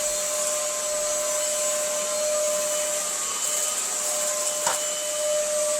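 Vacuum cleaner motor running steadily, a constant high whine over an airy hiss. There is one brief knock about three-quarters of the way through.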